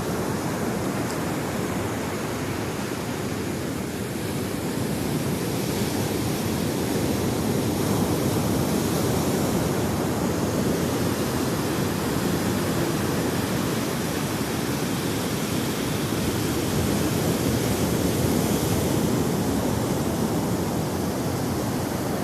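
Big ocean waves breaking: a steady rush of surf that swells louder twice, about a third of the way in and again near the end.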